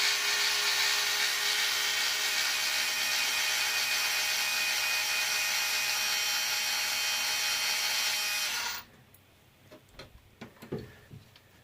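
Cordless drill-driver running steadily for about nine seconds, its whine sagging slightly just before it stops; a few light clicks follow near the end.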